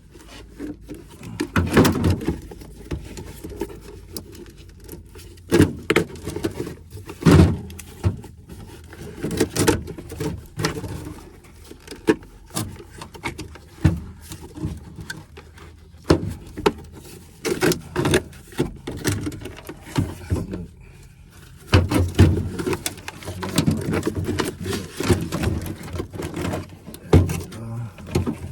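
Irregular knocks, clicks and rubbing of hand work on the car's old engine computer and its wiring, as it is worked loose; busier clattering near the end.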